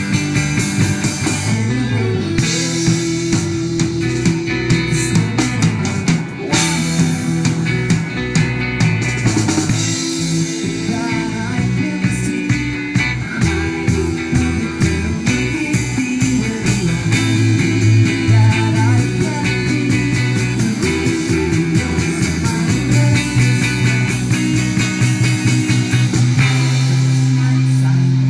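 A rock band playing live: drum kit with steady dense hits, electric guitar and keyboard over sustained bass notes.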